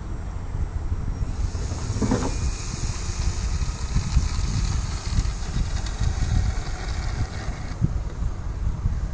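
Strong wind buffeting the microphone, with the high whine of an RC model plane's 2822 brushless electric motor and propeller running in the air; the whine stops about eight seconds in.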